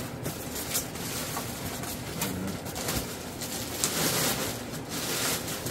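Polystyrene foam packing pieces being handled and fitted into a foam shipping box, foam rubbing on foam with a few light knocks. A plastic bag crinkles briefly about four seconds in.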